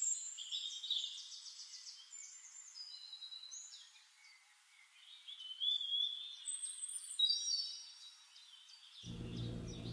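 Songbirds singing, a mix of short whistled notes, glides and trills. Background music comes in near the end.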